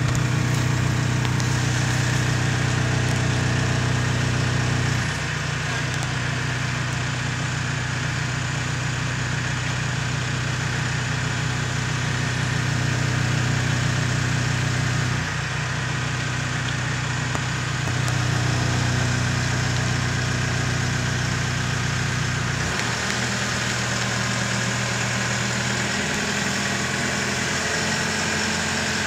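Telehandler's diesel engine running steadily. Its note shifts down and back up a few times as the boom lifts the load, with a clear change a little before the end.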